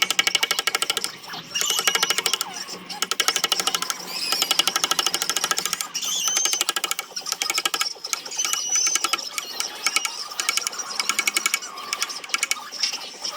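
Power sanding tool working the zelkova root wood, a fast, even rattling chatter that eases off and picks up again several times, with thin high squeaks over it.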